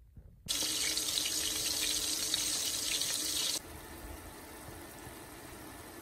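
Stuffed bitter gourds in keema masala sizzling in a frying pan. A loud crackling sizzle starts about half a second in and drops suddenly to a quieter, steady hiss a few seconds later.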